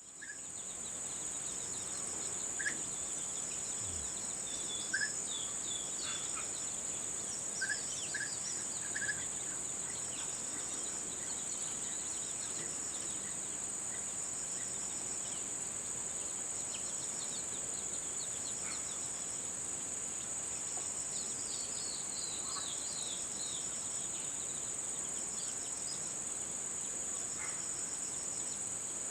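High-pitched, steady insect drone, with short bird chirps scattered through it, thickest in the first ten seconds and again around two-thirds of the way through.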